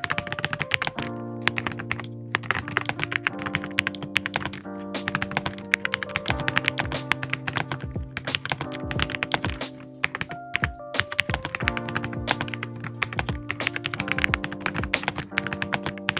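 Continuous rapid typing on a Kemove mechanical keyboard, a dense run of uneven key clacks, over background music with held notes.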